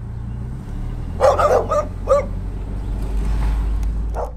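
A dog barking, a quick run of about four barks a little over a second in, over the steady low hum of an idling car engine.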